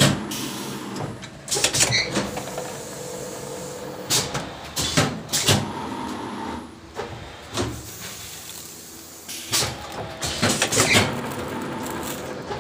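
Eye-drop bottle blow-moulding machine running: a steady hum broken by irregular loud clanks and short bursts of noise, bunched in clusters.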